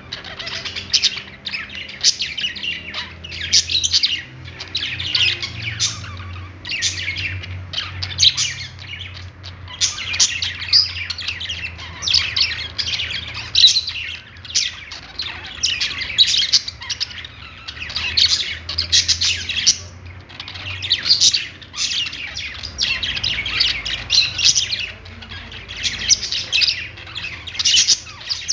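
Several pet budgerigars chirping and warbling together in a dense, unbroken chatter of short high calls.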